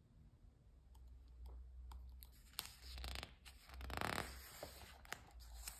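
Faint rustling and scraping of a picture book's paper page being handled and turned, with a few light clicks.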